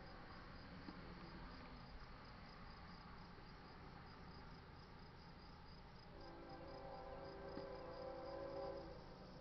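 Faint, steady insect chirping, a high pulse repeating about three times a second. From about six to nine seconds in, a faint steady chord of several tones sounds.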